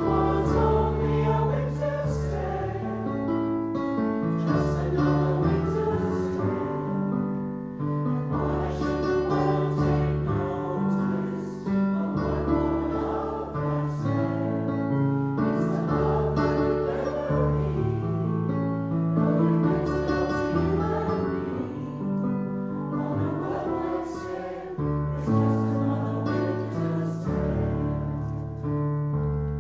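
Mixed choir of men's and women's voices singing a Christmas song, accompanied by a digital piano.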